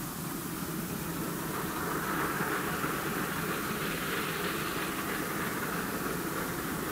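Distant steam train approaching, a steady rumbling noise that grows slightly louder as it draws nearer, under the hiss of a mono Super 8 sound track.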